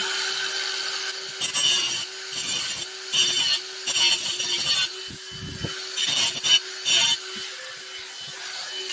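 Electric cut-off grinder running at a steady high whine while its wheel cuts through a steel bolt, the grinding rising in about seven harsh bites as the wheel is pressed into the metal.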